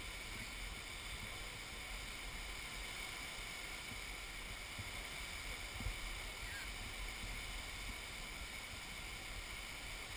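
Flash-flood water rushing and churning through a desert wash, a steady, even rush of muddy floodwater. A single brief low thump about six seconds in.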